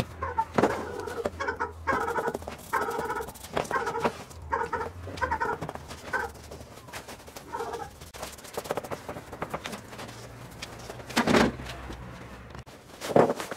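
A run of short, pitched animal calls, most like a dog's, repeating over the first several seconds. Near the end come two sharp knocks on the wooden bench.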